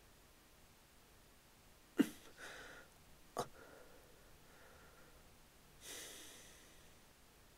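Soft movement sounds of a man getting up from a floor mattress and walking across a carpeted room: a sharp knock about two seconds in, another short knock a little later, and faint rustling of bedding and clothes. A breathy rustle swells and fades around six seconds in.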